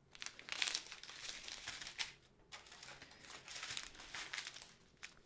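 Small clear plastic bags of diamond painting drills rustling as they are handled and shuffled through, in uneven spurts with a short pause about two seconds in.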